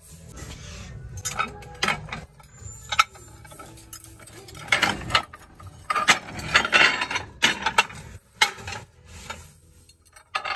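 Stacked ceramic baking dishes clinking and scraping against one another as they are handled and shifted on a shelf: a few scattered clicks at first, then a run of short clatters.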